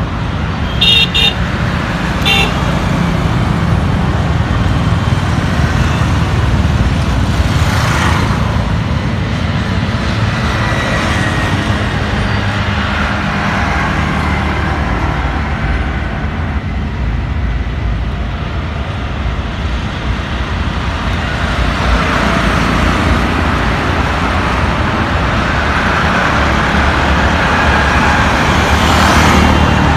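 City road traffic: a steady rumble of motorcycles and cars passing on a wide multi-lane road. A vehicle horn beeps in short blasts about a second in and again a moment later. Vehicles swish past close by around eight seconds in and near the end.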